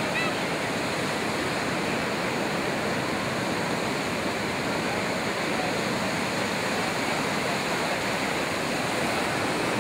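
Steady rushing wash of ocean surf breaking on the beach, an even hiss with no let-up.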